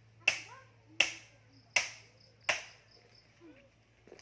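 A steady series of sharp knocks, four of them about three-quarters of a second apart, stopping about two and a half seconds in. Faint chirping calls come between them.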